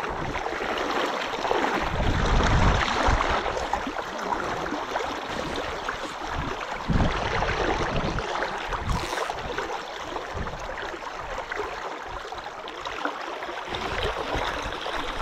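Fast river current rushing steadily around a wading angler, heard close up, with a few low rumbles on the microphone.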